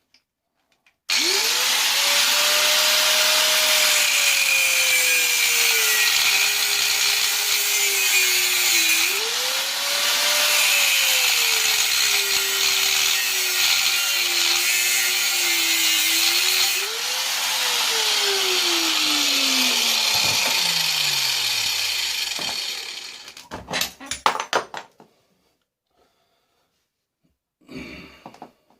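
Angle grinder starting up and cutting through a microwave magnetron's metal casing, its whine sagging and recovering as the disc is loaded. About 17 seconds in it is switched off and winds down with a steadily falling pitch, followed by a few short metallic clanks near the end.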